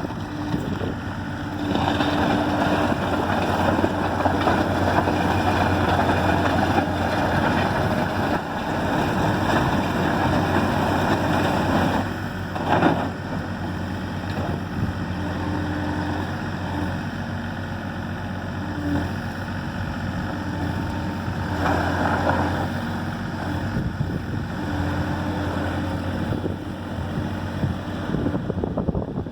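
Excavator engine running steadily, with louder, harsher stretches from about two seconds in to about twelve, and again briefly around twenty-two seconds. A single sharp knock about thirteen seconds in.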